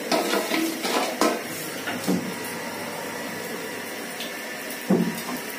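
Wooden spoon stirring and scraping nuts and spices in ghee and sugar syrup in an aluminium pot, with a few knocks against the pot, the loudest near the end.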